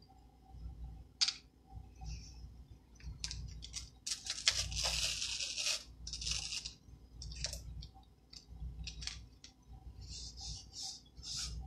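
Adhesive silkscreen transfer sheet rustling and crackling as it is peeled up off the board and smoothed back down by hand, in short crinkly bursts around the middle and again near the end. A single sharp click comes about a second in.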